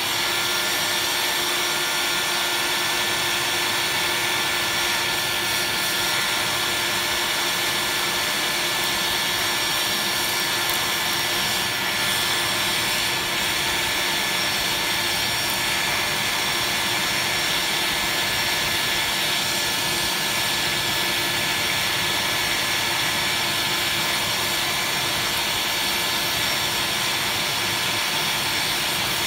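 Electric blower forcing air up through a bottom-blast charcoal forge fire: a steady rushing roar with a thin high whine. It runs at a single fixed speed that the maker finds too strong, so it burns through the charcoal quickly.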